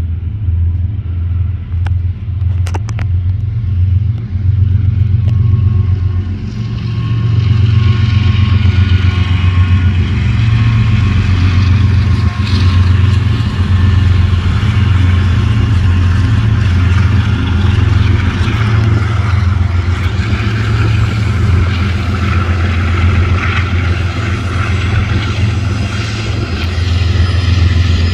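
Diesel locomotives at the head of a BNSF freight train passing close by, their engines running with a deep, steady drone. The sound swells about six seconds in and stays loud as the train rolls on.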